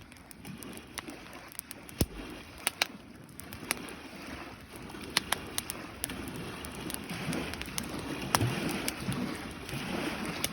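Wood campfire crackling, with irregular sharp pops over a low, steady rush of flame. A few louder snaps come about two seconds in and again near the end.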